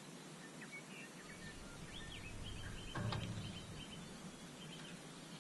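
Birds chirping and whistling in the background. A low rumble builds under them and peaks in a sudden bump about three seconds in.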